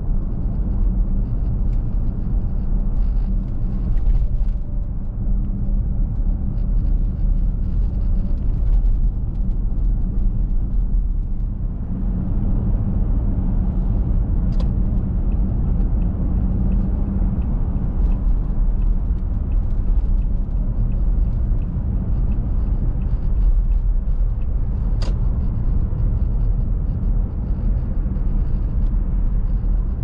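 Car driving: steady low engine and road rumble. Two sharp clicks are heard, one about halfway through and another some ten seconds later.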